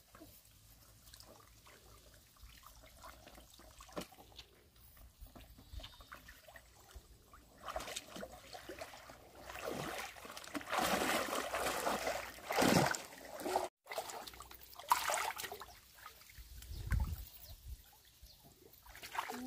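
Water trickling and sloshing. Faint at first, then heavier in spells from about eight seconds in.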